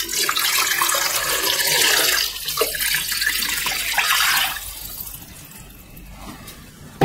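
Salt brine poured from a jug into a stainless steel tray over whole gutted trout, splashing onto the fish and filling the tray; the pour stops about two-thirds of the way through.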